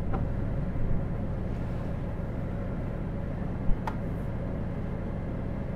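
Steady low rumble of a vehicle, heard from inside the cab on a rough dirt road, with one sharp click about three and a half seconds in.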